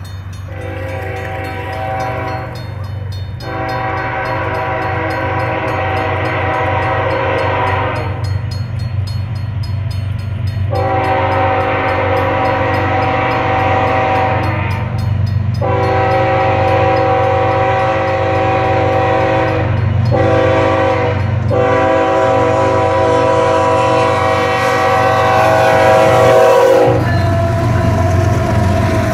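A Canadian Pacific diesel locomotive sounds its multi-tone air horn for a grade crossing as it approaches: several long blasts, a short one, then a final long blast held until the locomotive reaches the crossing, over the engine's low rumble and growing steadily louder. The horn stops a couple of seconds before the end, and the rolling noise of the passing train takes over.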